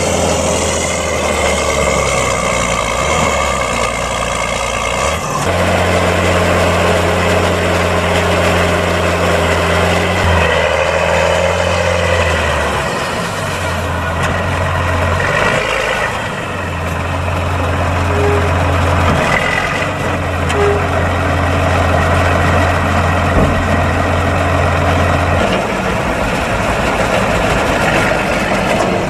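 John Deere 7710 tractor's diesel engine running under load while the Veenhuis tipping trailer's body is raised to dump chopped corn silage, its pitch changing in steps several times.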